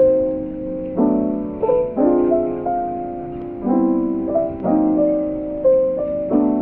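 Slow, gentle piano background music, chords struck about once a second and left to ring.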